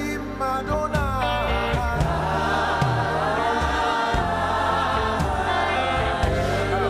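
Gospel worship music: a choir and singers sing slow, sustained lines over a keyboard and bass backing.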